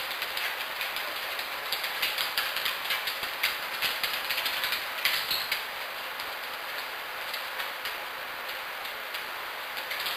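A dog's claws clicking irregularly on a hardwood floor as it prances and jumps, thinning out in the last few seconds, over a steady hiss.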